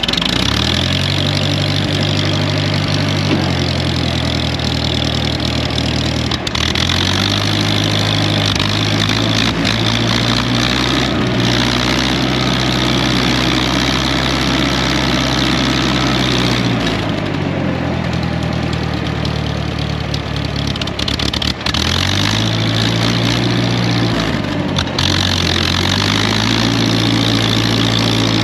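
The Wisconsin V4 air-cooled engine of a Ditch Witch R40 trencher, just started and running on a newly fitted Hot Spark electronic ignition in place of points. It runs steadily while the machine is driven, its speed stepping up and down several times.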